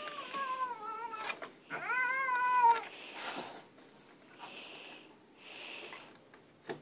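Domestic cat giving two drawn-out warning yowls, the second louder, rising then falling, followed by a few soft breathy hisses: a defensive cat being pawed at by a puppy.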